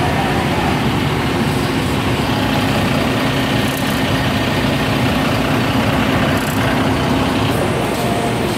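Bus engines idling at close range, a steady low drone that fades near the end.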